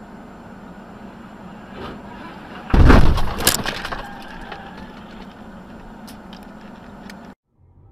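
Vehicle crash heard from a dashcam: steady road noise, then a loud sudden impact about three seconds in, followed by about a second of breaking and cracking debris. The sound cuts off abruptly near the end.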